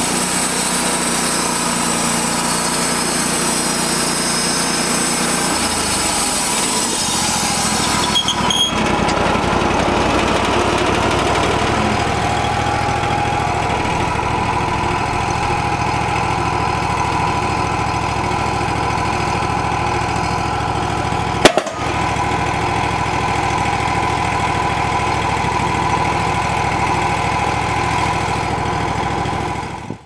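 Wood-Mizer LT35 portable bandsaw mill's 25 hp gas engine running steadily while the mill works a walnut log. The sound changes character about eight seconds in, and there is a single sharp knock later on.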